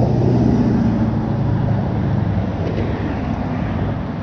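An engine running steadily with a low hum, easing off slightly toward the end.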